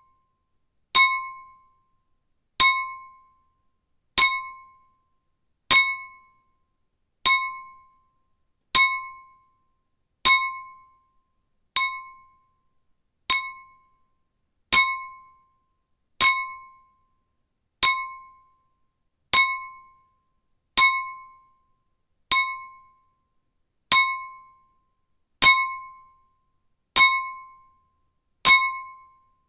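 Metal spoon tapping a clear glass bowl: each tap gives a short, clear ring at one pitch that dies away within about half a second, repeated at an even pace about every second and a half.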